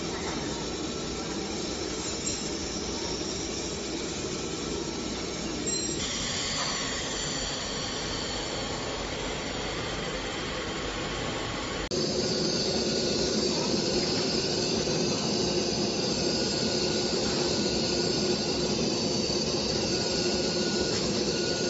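Fabric laser cutting machine running: a steady hiss with whines that rise and fall as the cutting head's motors drive it, and short high tones that switch on and off. The sound shifts about six seconds in and gets louder about twelve seconds in.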